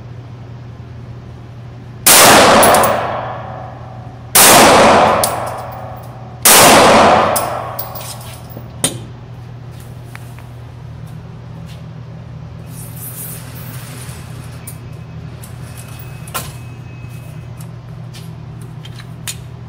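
Glock 19 9mm pistol fired three times, roughly two seconds apart, each loud shot ringing off over about a second. A few faint clicks follow.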